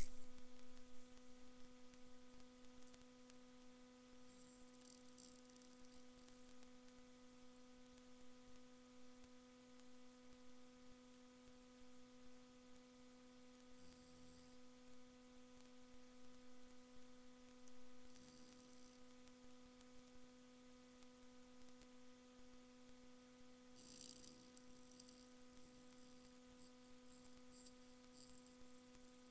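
Near silence under a steady electrical hum, with a few faint, soft snores from a sleeping puggle several seconds apart.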